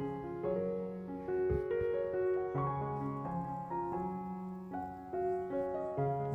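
Background piano music: a gentle melody of held notes over slower, sustained bass notes.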